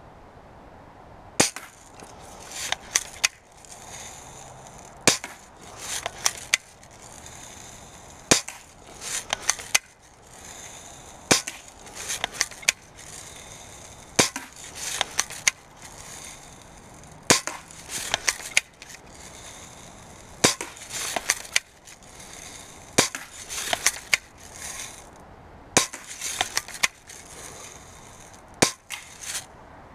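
4.5 mm air rifle firing steel BBs over and over at a plastic target. About thirty sharp cracks, irregularly spaced and often in quick groups of two or three.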